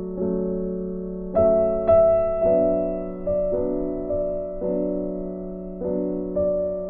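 Background piano music: slow, soft chords struck about once a second, each left to ring and fade.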